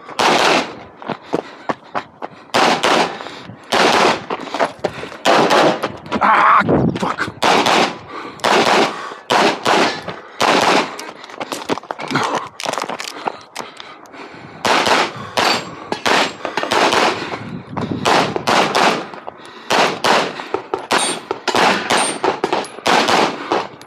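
Semi-automatic pistol firing rapid strings of shots, fired in quick groups with short pauses between them.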